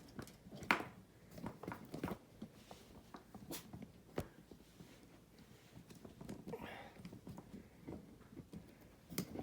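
Faint scattered clicks and knocks of a camera tripod being handled and set up, with one sharper click about a second in and another near the end.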